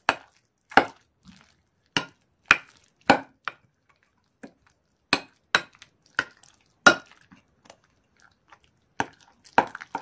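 Metal spoon clinking against a glass bowl while stirring a thick salad of corn, chopped egg and cheese in mayonnaise. About a dozen sharp clinks come at an uneven pace, roughly half a second to a second apart.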